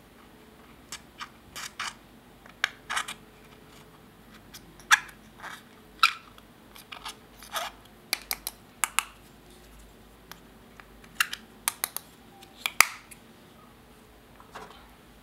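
A thin metal tool scraping and picking pressed eyeshadow out of a small plastic compact: irregular sharp clicks and scratches, sometimes two or three in quick succession, dying out near the end.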